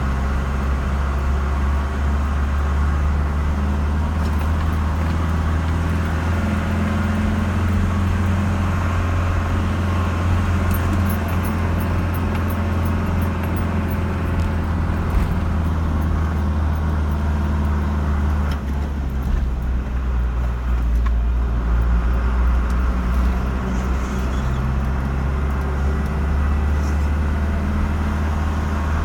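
Car driving on the road: a steady low rumble of engine and tyre noise, with the engine note changing about two-thirds of the way through.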